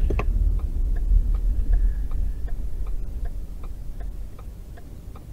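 Car's indicator flasher ticking evenly, about three to four clicks a second, over the low rumble of the car rolling in traffic. The rumble fades as the car slows.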